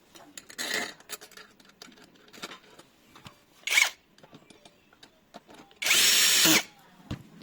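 Cordless drill-driver run in short bursts, driving a screw while fitting a lock cylinder. There are two brief runs, then a longer, louder one of under a second near the end, with small clicks of handling between.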